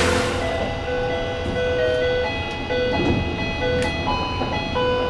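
Freight train passing, its wheels squealing in several high steady tones that switch pitch irregularly over a low rumble, with a few sharp clicks.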